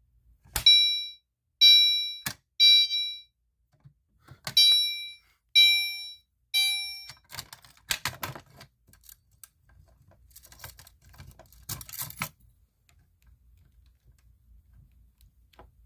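Gentex Commander 3 fire alarm horn sounding two rounds of the temporal-three evacuation pattern: three short blasts, a pause, then three more, the signal of a pulled pull station. After it stops there are about five seconds of scattered clicks and clattering knocks.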